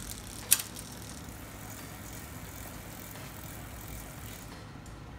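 Rear wheel of a vintage road bike spinning freely after the cranks are turned by hand, its hub ratchet giving a steady whirring buzz that fades near the end. A sharp click sounds about half a second in.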